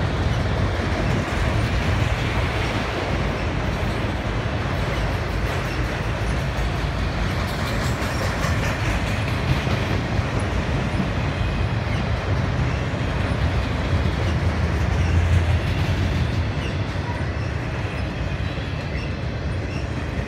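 Autorack freight cars rolling past, steel wheels giving a steady rumble and clatter on the rails. Faint wheel squeals come in near the end.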